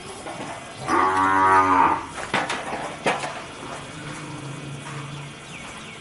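Water buffalo mooing: one loud call lasting about a second, starting about a second in. A couple of sharp knocks follow, then a quieter low call.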